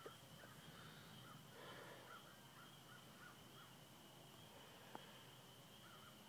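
Near silence: faint outdoor ambience with a steady high-pitched hum and faint, scattered bird chirps, with two small clicks, one at the start and one about five seconds in.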